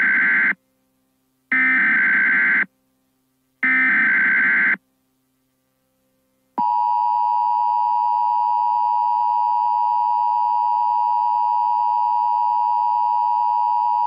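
Emergency Alert System broadcast: three short bursts of warbling digital data tones (the SAME header), each about a second long, the first already under way. About six and a half seconds in, the EAS two-tone attention signal starts, a steady harsh dual tone that holds, announcing a National Weather Service severe thunderstorm warning.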